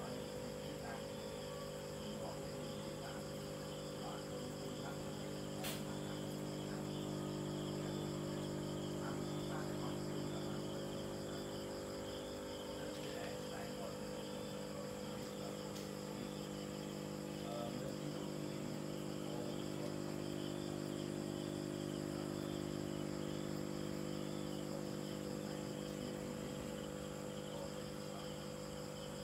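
Steady hum of aquarium pump and filter equipment, several low tones held without change, under a continuous high, evenly pulsing chirping like crickets.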